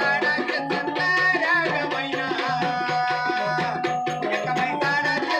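Live Marathi devotional folk song: a solo singer's voice over a quick, even hand-drum rhythm and held keyboard notes.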